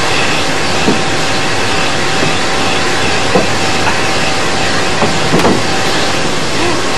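Comically overpowering blast from an electric hand dryer: a loud, steady rush of blowing air with a thin steady motor whine under it. A few short bumps sit on top of it.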